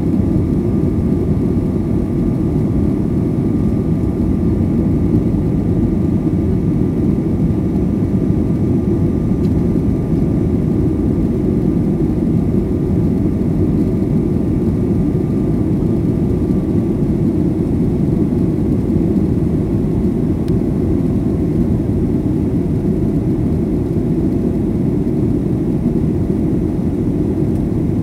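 Steady engine and rushing-air noise of a Boeing jet airliner heard from inside the passenger cabin during takeoff, with a faint thin whine that fades out a little past halfway.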